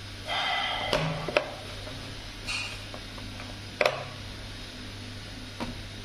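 Stainless-steel Leatherman multitool being handled and set out on a hard surface: a short scrape, then a few sharp metal clicks, the loudest a little before the four-second mark.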